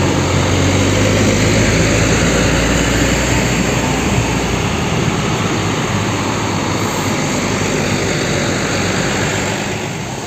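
Diesel tour coaches pulling out in a convoy and driving past close by, a deep engine drone over loud rushing noise, strongest in the first few seconds. The sound dips near the end.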